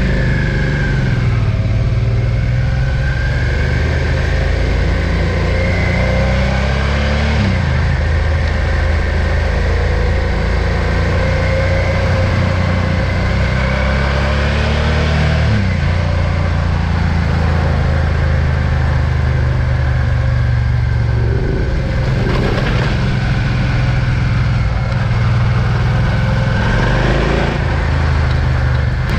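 Suzuki V-Strom 650's V-twin engine under way, its pitch climbing as it accelerates and dropping sharply at two upshifts, about seven and a half and fifteen and a half seconds in, then running fairly steadily.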